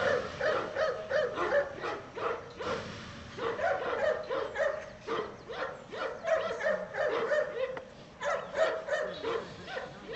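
Cane Corso barking in rapid, repeated barks, with a brief lull about three seconds in and again near the end: agitated barking at a decoy during protection training.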